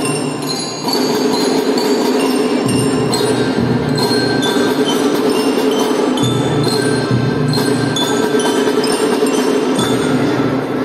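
Children's drum band playing, with bright, bell-like mallet notes ringing over a sustained lower backing and a recurring low drum pulse.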